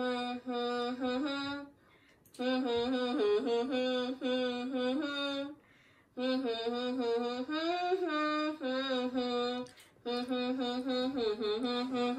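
A person humming a tune without words, holding steady notes that glide between pitches, in phrases of a few seconds separated by short pauses.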